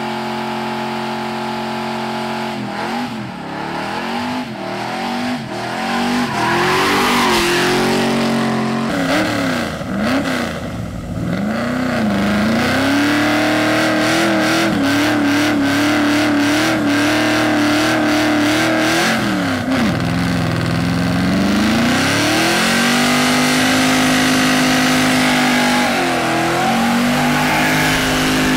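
Chevrolet ZZ572 big-block V8 in a pickup truck, revved up and down several times, then held at high revs during burnouts, dipping once about two-thirds of the way through before climbing again. Spinning rear tires hiss underneath the engine.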